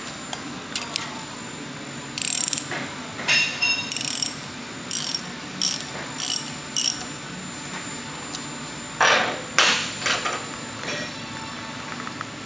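Socket ratchet wrench clicking in a run of short bursts, then a longer one later on, as it undoes the 9/16 bolt holding a pump's impeller on the shaft.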